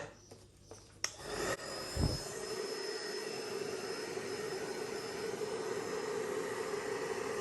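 Hairdryer switched on with a click about a second in, then running steadily with a high whine as it blows air across wet poured acrylic paint.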